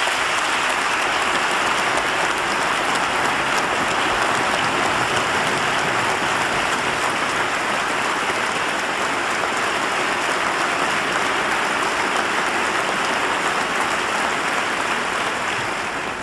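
Large audience clapping in a long, steady round of applause that dies away at the very end.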